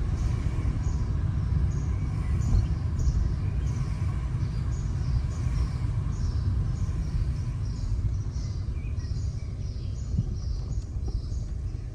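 Steady low rumble of a car driving along the road, with a fast, regular run of short high chirps, about two to three a second, over the top.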